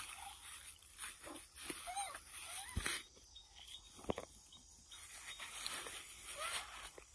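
Monkey giving a short squeak about two seconds in, amid scattered clicks and rustling and a faint hiss of outdoor background.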